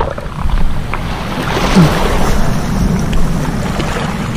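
Wind buffeting the microphone over small waves washing onto a pebble beach, a steady rushing noise.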